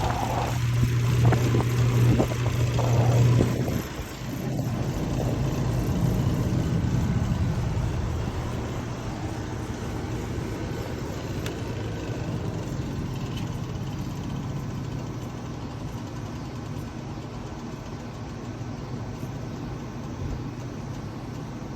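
Homemade box fan built from a vintage attic fan running, with a strong steady motor hum and whooshing air. About four seconds in the hum drops away suddenly after a click, and the air noise then fades slowly.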